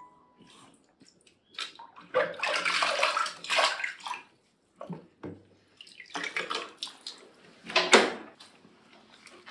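Bath water splashing and streaming in a plastic tub as a wet cat is lifted out, in several irregular bursts.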